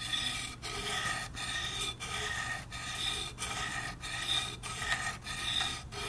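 Multi-tool can opener blade drawn along the ceramic rod of a Spyderco Sharpmaker: about nine even scraping strokes, roughly one every two-thirds of a second, each with a thin metallic ring. These are light test passes over a bevel coloured in with marker, to show where the stone takes off metal.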